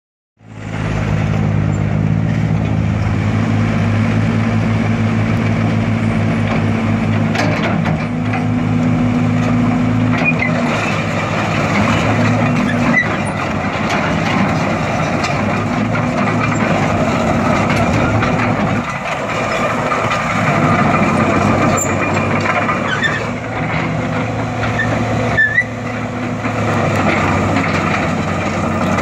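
John Deere 200LC hydraulic excavator's diesel engine running, with a steady low hum for about the first ten seconds. The sound then turns rougher and noisier as the boom, arm and bucket are worked and the upper structure swings.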